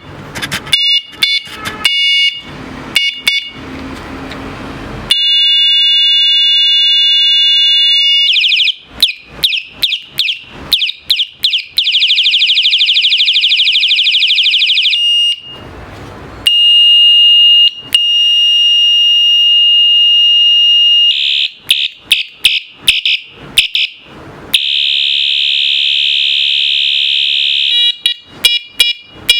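Rechargeable electric bike horn sounding loudly through its modes: runs of short sharp beeps, a steady high-pitched tone, and a fast pulsing alarm tone, switching from one to another several times.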